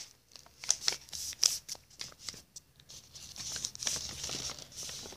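Paper airplane being handled and creased by hand: scattered soft rustles and crinkles of paper, with a few sharper crackles as the folds are pressed.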